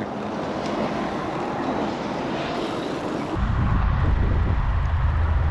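Steady wind and tyre noise from a moving bicycle. About three and a half seconds in, a heavy low rumble sets in and gets louder.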